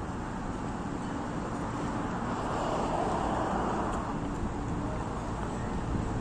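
Steady outdoor city background noise, like distant traffic, swelling for a second or so about halfway through.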